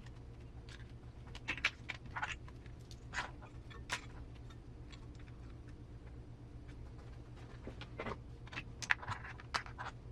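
Scattered light clicks and taps of small plastic parts and wires being handled and pressed into place, a few near the start and a quicker cluster near the end, over a steady low hum.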